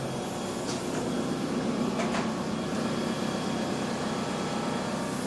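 Steady background hum with a couple of faint clicks about one and two seconds in.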